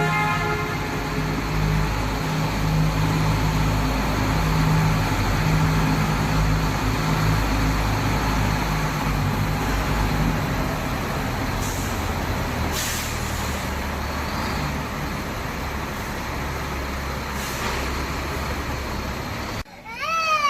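A large engine running steadily with a low hum under a constant rushing noise, which cuts off abruptly near the end.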